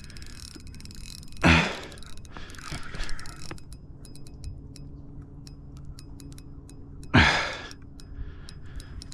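Spinning reel ticking irregularly, a few clicks a second, while a hard-fighting sheepshead pulls on the line. Two loud short bursts of noise stand out, about a second and a half in and near the end.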